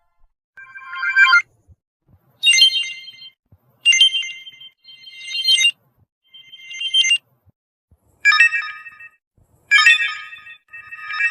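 A run of Samsung phone notification chimes played one after another with short gaps: about eight bright, pitched jingles, each under a second long and differing in pitch from one to the next.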